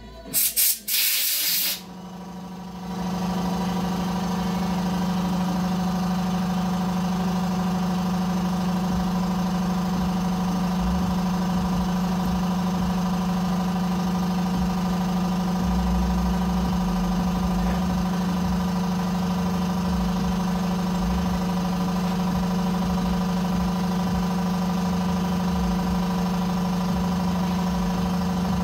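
A steady machine hum sets in about two seconds in, after a few short loud sounds, and holds one unchanging low pitch with an uneven low rumble beneath it.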